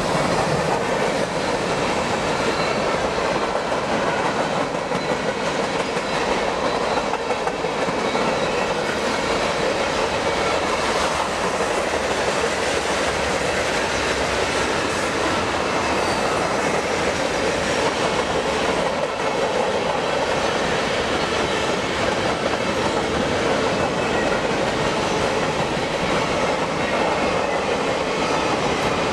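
Freight train cars (tank cars, covered hoppers and boxcars) passing at speed: a steady, unbroken noise of steel wheels running on the rails.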